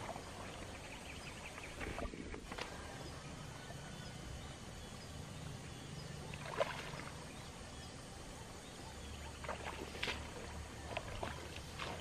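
Footsteps wading through a muddy, waterlogged rice paddy: boots squelching and splashing in deep mud at irregular intervals, with a few sharper splashes near the end.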